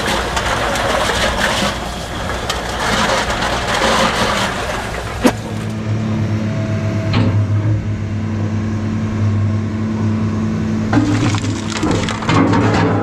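Aluminium can crusher and blower running, crushed cans rattling as they are blown into a shipping container. About five seconds in this gives way to the steady hum of a hydraulic excavator fitted with a scrap-metal shear, with a few knocks near the end.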